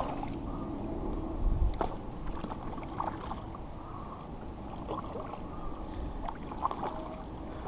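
Kayak paddle strokes splashing and sloshing in the water, with a few short, sharper knocks and splashes scattered through, the strongest about one and a half seconds in.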